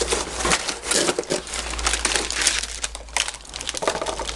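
Packaging being handled and unwrapped: irregular crinkling and rustling with many small clicks and knocks.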